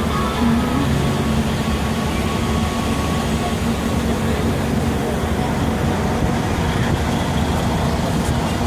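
Car ferry's diesel engines running, a steady low rumble heard on deck during the crossing.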